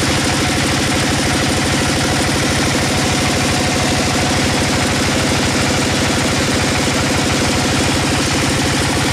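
Band sawmill running steadily as its blade cuts through a large log: a loud, even drone with a rapid low pulsing under a hiss.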